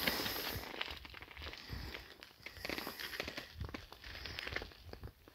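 Footsteps crunching on loose rock and gravel, about one step a second, with some handling rustle from the camera.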